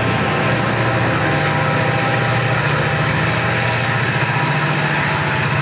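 Diesel locomotives of a coal train's mid-train helper set passing close by, their engines running steadily under a constant din of wheels and cars on the rails.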